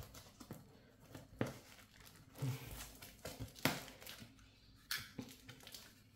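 Snap-off box cutter slicing and scraping through layers of brown packing tape and cardboard, with the tape crinkling. It comes as a few short, sharp strokes roughly a second apart, with quiet handling between.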